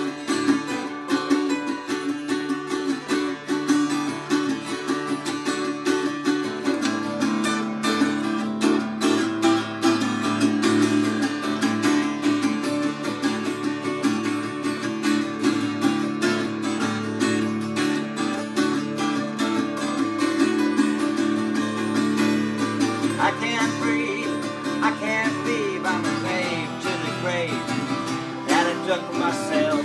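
Two acoustic guitars play an instrumental break, one strumming chords and the other picking a lead line over them.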